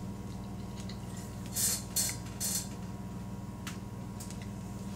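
A person eating a forkful of loaded baked potato: three short, wet mouth sounds of chewing close to the microphone, about half a second apart near the middle, over a steady low hum.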